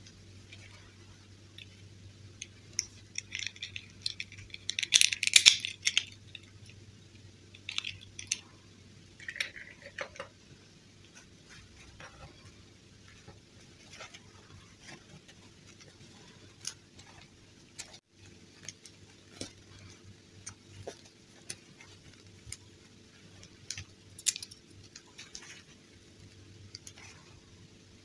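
Handling sounds from dressing a plastic fashion doll: fabric of a doll dress rustling and crinkling, with light plastic clicks and taps. The loudest stretch is a burst of rustling about five seconds in. A faint steady hum runs underneath.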